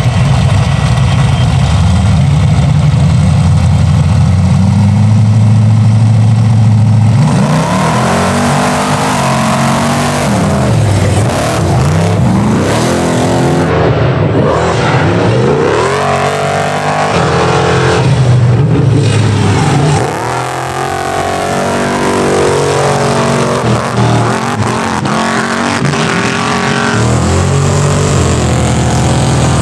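Engines of an Ultra4 off-road buggy and a carbureted Ford Bronco II held running at the start line, then launching about seven seconds in and revving hard. The pitch rises and falls again and again as the two vehicles race over the dirt course.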